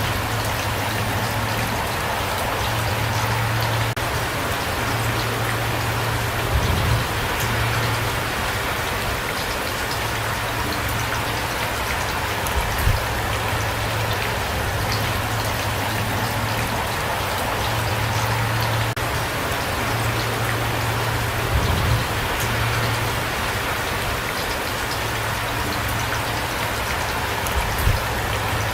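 Steady rain falling, an even dense patter, with four brief low thumps spread through it.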